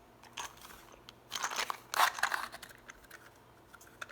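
3D-printed plastic box being handled: a burst of scraping and rubbing with small clicks from about a second and a half in, and a few lighter clicks around it.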